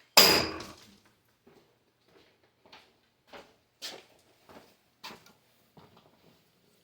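A thrown knife striking the target with one loud, sudden hit and a brief metallic ring, followed by a run of faint knocks.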